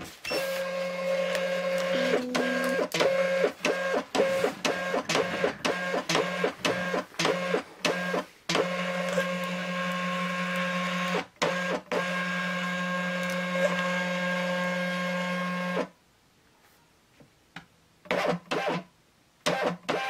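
Rollo thermal label printer feeding and printing a label. Its motor gives a steady whir that stops and starts many times in quick succession for about sixteen seconds, then goes quiet before a few short whirs near the end.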